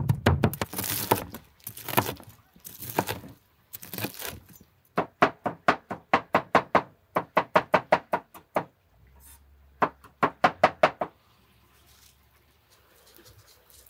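Cleaver chopping tomatoes and pepper on a wooden cutting board: a few slower chops at first, then quick runs of knocks, about four a second, stopping about eleven seconds in.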